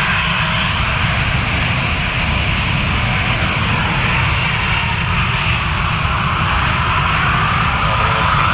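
Embraer 190 airliner's twin General Electric CF34 turbofans running at taxi power: a steady jet whine and hiss over a low rumble. A faint tone in the whine rises slightly near the end.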